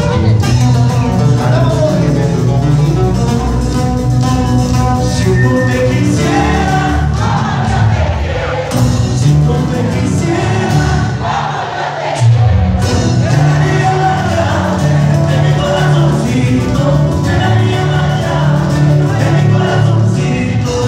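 Live band music playing loud, with singing over a strong bass beat and a crowd. The bass drops out for about a second just past the middle, then comes back.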